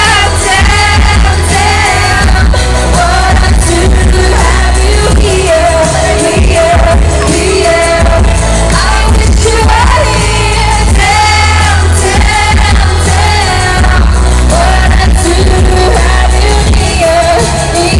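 Pop song with singing over a backing track with heavy bass, played loud over a sound system.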